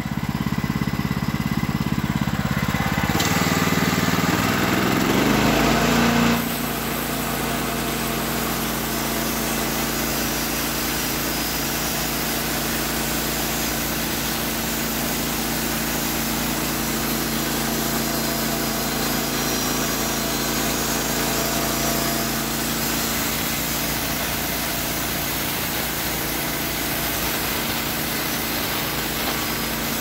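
Gas engine of a Woodland Mills HM130 Max band sawmill running at high throttle while the mill saws a log. It rises in pitch about four to six seconds in, then holds a steady drone.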